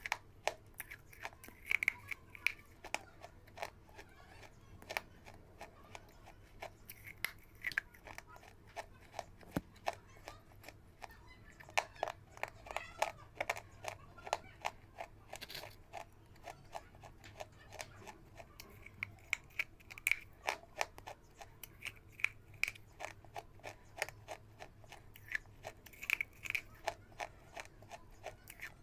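Hard, dry reddish-brown discs crunched between the teeth close to the microphone: quick clusters of sharp crackles and snaps as each bite is chewed, with short pauses between.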